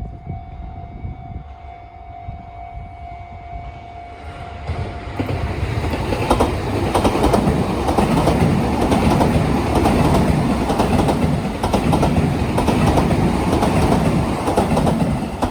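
Commuter train passing over turnout rail joints, its wheels clattering loudly over the joints. The train noise builds up about four seconds in and stays loud, with a steady high tone heard before it arrives.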